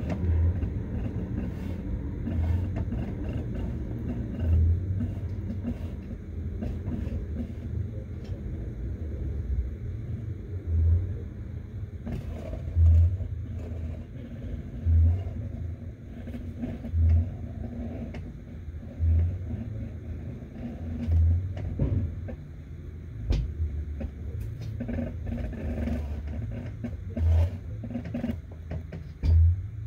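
Camera handling noise as the camera is moved along rough masonry: a steady low rumble with dull thumps about every two seconds and scattered small scrapes and clicks.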